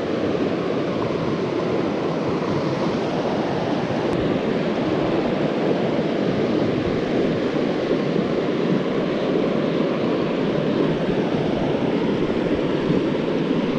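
Steady rush of water from a river cascade.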